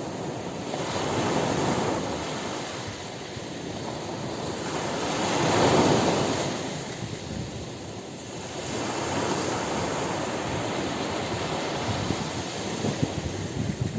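Ocean surf breaking on a beach, a steady wash that swells and ebbs with each wave, the biggest surge about six seconds in.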